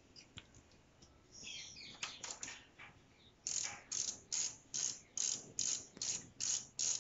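Ratchet wrench clicking in a steady run of back-strokes, about two and a half a second, as a loosened lower radiator mounting bolt on a motorcycle is spun out.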